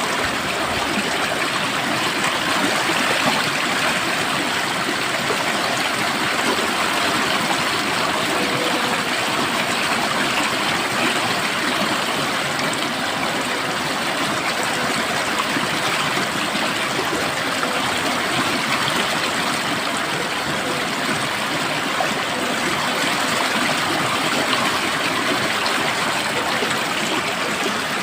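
Stream water flowing and splashing steadily, an even rushing wash with no pauses.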